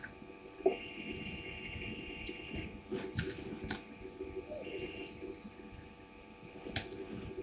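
Night chorus of calling insects: a high trill that comes in short bursts about every two seconds, over a lower steady trill in the first couple of seconds. A few sharp clicks cut through it.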